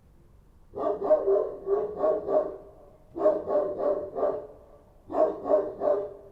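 A street dog barking in three quick bouts of several barks each, with short pauses between them.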